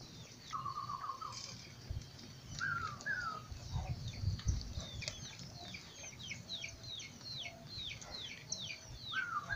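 Birds calling: a quick run of short chirps that slide down in pitch, repeating through the second half, with a few lower warbling phrases near the start and again near the end.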